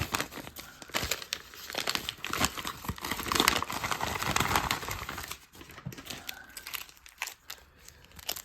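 Packaging of a Pokémon mystery pack crinkling and tearing as it is opened by hand, dense for about five seconds, then thinning to scattered rustles and clicks.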